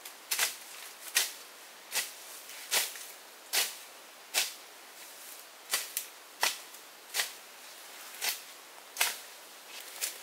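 A steady run of sharp chopping strikes, about a dozen, one roughly every 0.8 s with a slightly longer pause about halfway: a blade-edged tool such as a hatchet or machete chopping wood.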